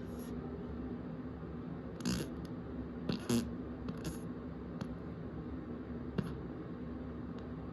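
Steady low hum with several brief clicks and rustles scattered through it, the strongest a pair about three seconds in.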